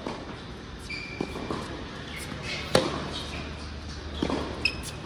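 Tennis rally: a ball struck by rackets and bouncing on a hard court, sharp pops about every second and a half, the loudest a little before the middle.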